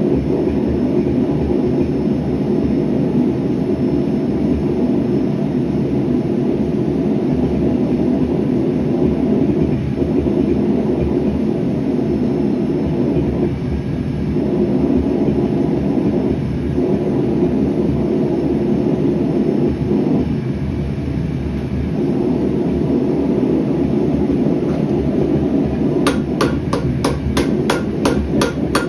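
Gas forge burner running with a steady low rushing noise. About 26 seconds in, a rapid, even run of hammer blows starts, about four a second: rebar steel being hammered on an anvil.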